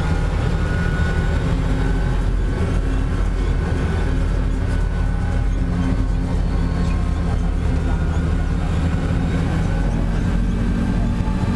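Large farm tractor's diesel engine running steadily, a continuous low drone with road and mechanical noise over it.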